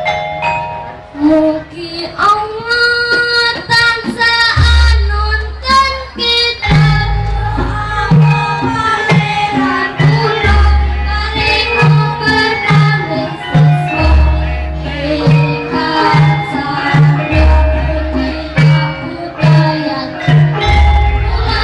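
Javanese gamelan ensemble playing with singing voices: metallophones and a hand drum keep a steady beat, and a deep gong stroke falls about every three and a half seconds.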